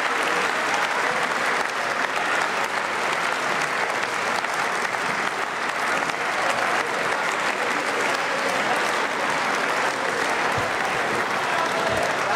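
Members of parliament applauding at the end of a speech, a steady dense clapping that holds without a break.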